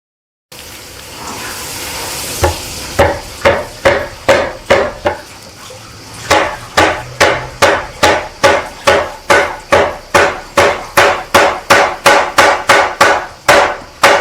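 Hammer tapping a nail-in plastic glide onto the foot of a chair leg: a steady series of sharp knocks, about two a second, with a brief pause partway through.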